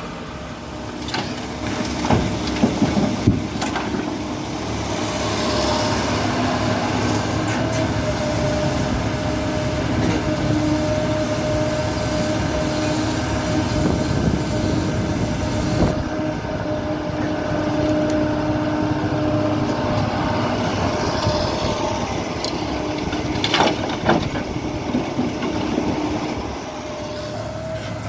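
Kobelco SK75 excavator's diesel engine running steadily under digging load, with clusters of clanks and knocks from the bucket working the ground about two to three seconds in and again a few seconds before the end.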